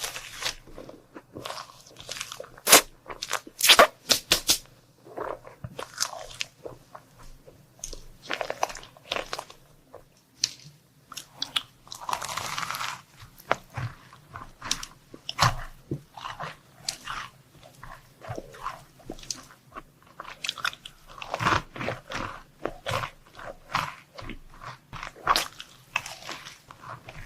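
Close-miked crunchy bites and chewing of chocolate sweets and desserts, a rapid series of sharp crunches that comes in bursts.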